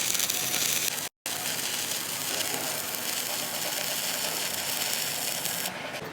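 Stick (arc) welding arc crackling and hissing steadily, cutting out briefly about a second in.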